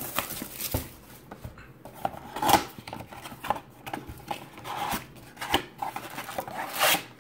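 Scraping and rustling of hands working a cardboard trading-card blaster box, a string of irregular short scrapes with a louder one near the middle and another near the end.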